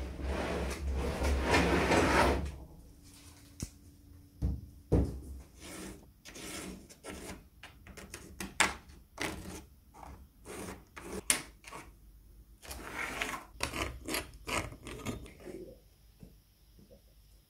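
A loud steady rushing noise over a low hum cuts off about two and a half seconds in. It is followed by a run of short, irregular scraping and rubbing strokes, some louder than others, which die away near the end.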